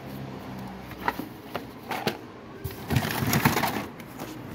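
Cardboard boxes and plastic blister packs handled and shuffled in a cardboard box, giving scattered clicks and taps and a louder stretch of crackling and rustling about three seconds in.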